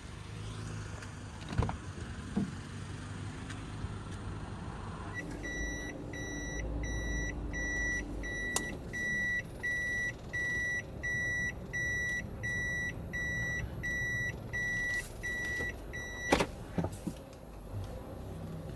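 Inside a Toyota Hiace van, a dashboard warning chime beeps steadily at about one and a half beeps a second for roughly eleven seconds. It starts about five seconds in, as the engine's low running sound comes up. The beeping cuts off with a sharp, loud click, followed by a second smaller one.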